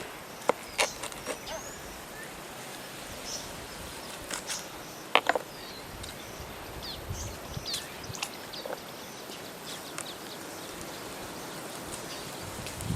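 Forest ambience: a steady background hiss with scattered short, high bird chirps and a few sharp clicks or snaps, the loudest a little past five seconds in.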